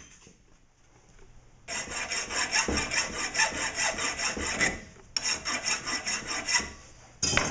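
Hand file rasping across the end of a metal bar held in a bench vise, in rapid short strokes starting a second and a half in, with a brief break about five seconds in and another just before the end, taking the last metal off down to the marked line.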